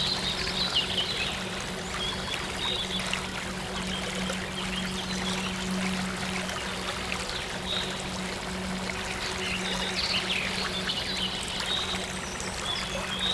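Water flowing and trickling steadily like a stream, with short high bird chirps scattered throughout and a low, steady soft-synth drone underneath.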